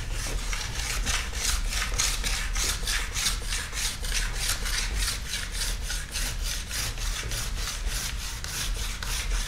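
A medium 400-grit stone worked back and forth under firm pressure along a ski's steel base edge, a rasping rub about four strokes a second. It is deburring and hardening the edge after filing.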